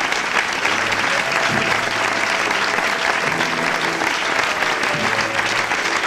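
Audience applauding steadily, with music playing under it.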